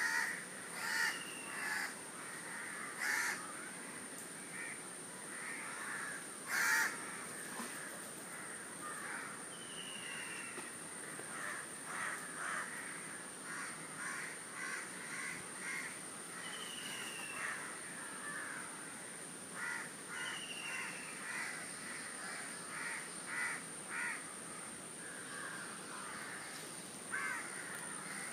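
Crows cawing over and over, with another bird's short falling whistle every few seconds and a steady high-pitched whine behind.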